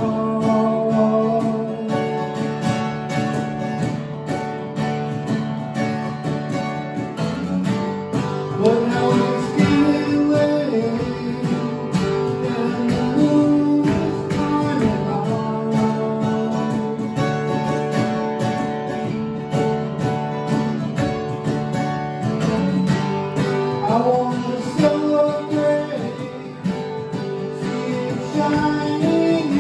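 Acoustic guitar strummed live, with a melody line on top that slides from note to note.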